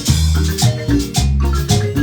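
Marimba ensemble playing dance music: repeated mallet notes over a steady beat of deep bass notes, with shaker percussion.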